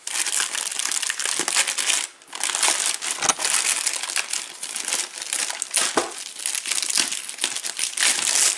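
Clear plastic wrapping crinkling and rustling as hands pull it off a padded tank bag, with a brief lull about two seconds in and a couple of soft bumps.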